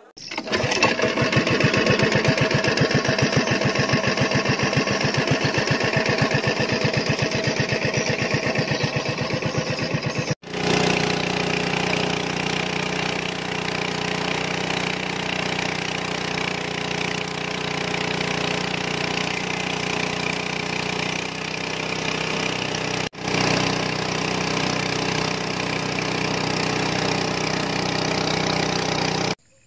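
Small boat engine running steadily as the boat travels, with a fast even pulse. Briefly broken twice by short gaps.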